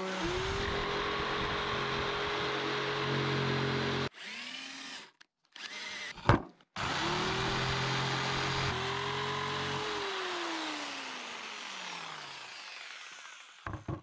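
Electric jigsaw cutting a sheet of moisture-resistant plywood, its motor running steadily. It drops out for a few seconds around the middle, starts again, and near the end is switched off, winding down with a falling pitch.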